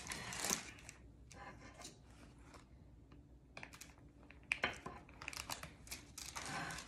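Faint rustling of wax paper and scattered light clicks and scrapes from a metal offset spatula pushing chocolate glaze over a cake's edge. The sounds come in short clusters, a little louder about four and a half seconds in and near the end.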